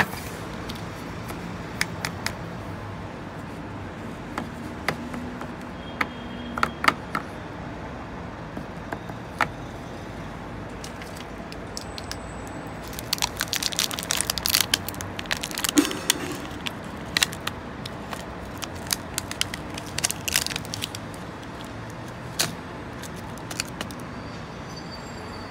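Handling noise of a hard plastic lunchbox: scattered sharp clicks and taps, with a dense run of crackling clicks about halfway through and again a few seconds later, over a steady low hiss.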